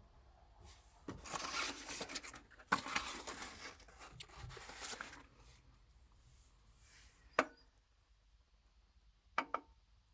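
Rustling and scraping for about four seconds, then two sharp taps a couple of seconds apart.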